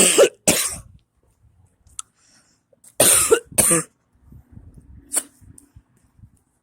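A man coughing hard in pairs: two loud coughs at the start and two more about three seconds in.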